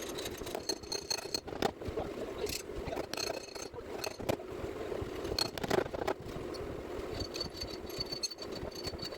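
Paintless dent repair tool work on a car door panel: irregular light taps, clicks and scrapes of tools against sheet metal over a steady low background hum.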